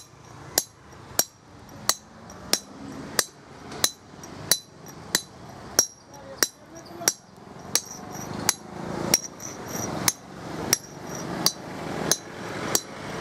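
Hammer striking a steel chisel on stone, chipping and dressing a stone grinding mortar: sharp ringing taps at an even pace, about three every two seconds.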